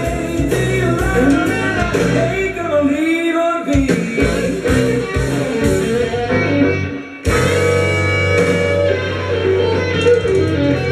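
Rock 'n' roll record with a singer and guitar playing; about seven seconds in it cuts off and another track starts at once with electric guitar.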